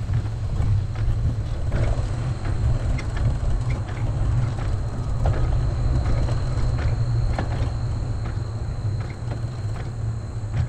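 Wind rumbling on the microphone of a camera riding along on a moving bicycle, over a hiss of tyre noise, with faint scattered ticks from the trail surface.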